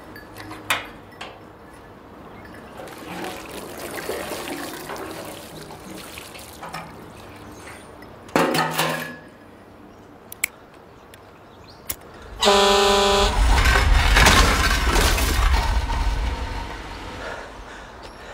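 A vehicle horn blares about twelve seconds in, a loud held tone lasting under a second, after a shorter toot about four seconds earlier; several seconds of loud low rumbling noise follow the long blast.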